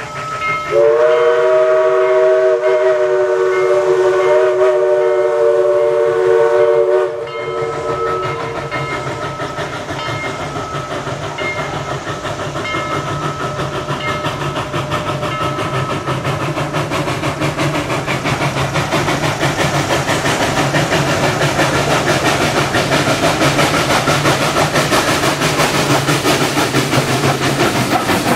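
Southern 4501, a 2-8-2 Mikado steam locomotive, sounds one long blast of its steam whistle, several notes at once, lasting about six seconds. Then its exhaust beats and running gear grow steadily louder as it works upgrade with its train and draws close.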